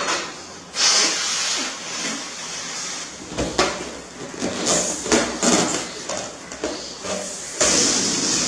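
Air hissing out of a deflating balloon: a long loud hiss from about a second in, shorter uneven bursts of noise in the middle, and the hiss again near the end.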